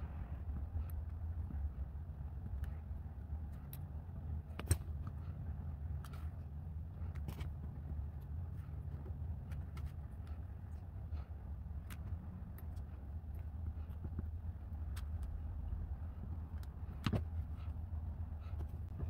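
Small scattered clicks and ticks of flat-nosed pliers pinching a thin wire ring to kink marks into it, a few of them sharper, about five, seven and seventeen seconds in. A steady low hum underlies them.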